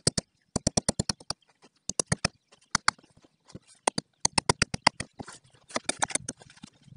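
Rapid clicking in short bursts of five to eight sharp clicks, about eight to ten a second, repeated four or five times with short pauses between.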